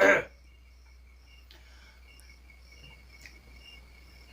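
Faint cricket chirping: a regular series of short, high chirps over a thin steady trill.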